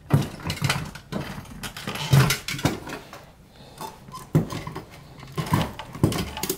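Irregular plastic clicks, knocks and rustling as hands work the fuel lines, connectors and wiring on a fuel pump module in its tank opening. A few short, low vocal sounds come in among the clicks.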